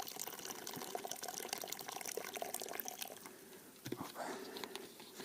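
Faint trickling and dripping water, fading after about three seconds, with a few small clicks near the end.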